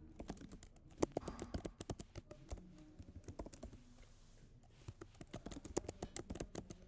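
Typing on a computer keyboard: quick runs of key clicks, with a short pause a little after halfway before the typing picks up again.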